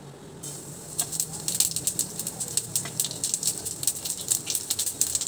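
Cumin seeds hitting hot oil in a kadhai: a sizzle starts about half a second in, and from about a second in the seeds are crackling with many quick, irregular pops, the sign that the oil is hot enough for the tempering.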